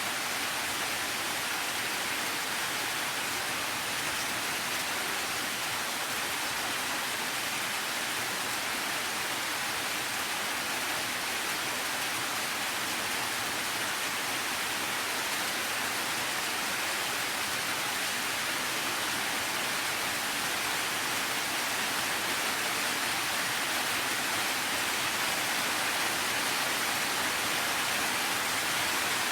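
Steady rain, an even hiss of falling water with no distinct drops or thunder standing out.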